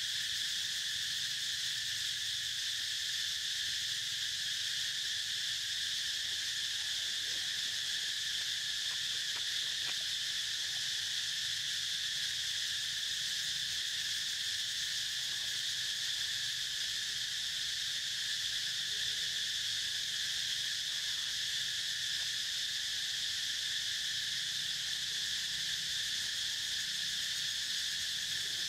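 Steady, unbroken high-pitched insect chorus droning without pause.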